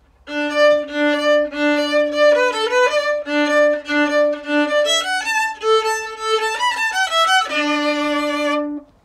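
Closing music: a short solo instrumental tune, with a lower held note sounding under the melody. It starts just after the beginning and stops shortly before the end.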